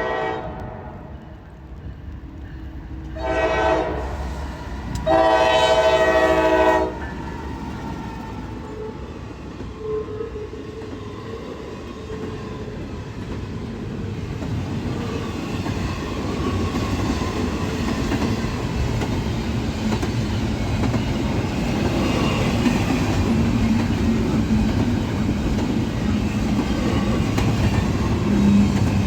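Norfolk Southern freight locomotive's multi-note air horn sounding a short blast about three seconds in and a longer one about five seconds in, the short-then-long close of a grade-crossing signal. Then the steady rumble of the diesel locomotive and freight cars passing, wheels clacking on the rail joints, growing gradually louder.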